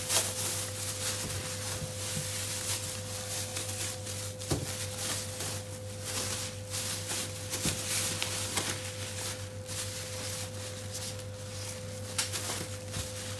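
Thin plastic bag rustling and crinkling as a lamb leg is slid into it and the bag is gathered and handled. A steady low electrical hum with a faint steady tone runs underneath.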